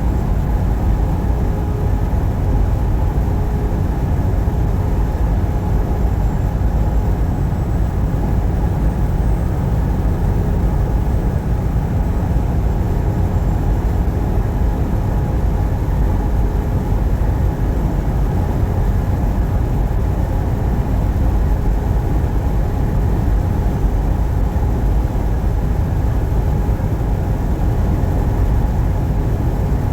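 Steady road and engine noise inside a truck's cab while driving, a continuous low rumble without change.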